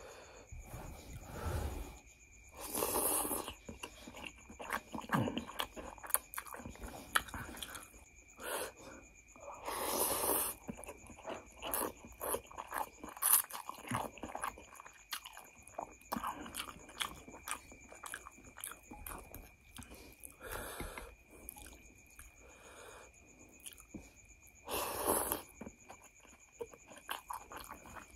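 Close-up mouth sounds of someone eating noodles: wet chewing and small clicks throughout, broken by several louder slurps of about a second each as strands are sucked in. A faint steady high whine runs underneath.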